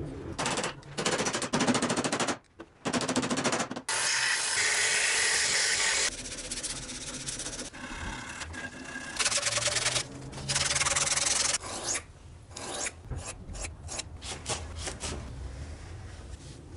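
Hand sanding of a wooden knife handle: scratchy strokes of abrasive on wood in runs of a second or two, with one longer run about four seconds in. Shorter, quieter rubbing strokes follow near the end.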